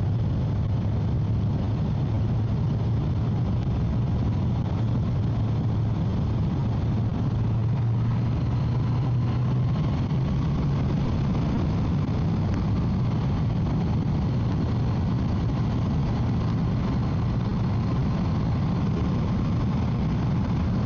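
Motorcycle cruising at a steady highway speed: a constant low engine drone under steady wind rush, as heard from inside the rider's helmet.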